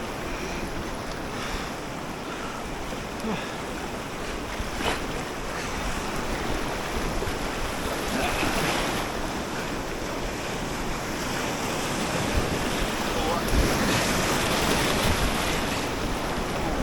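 Whitewater of a river rapid rushing steadily, with wind buffeting the microphone; the water grows somewhat louder over the second half.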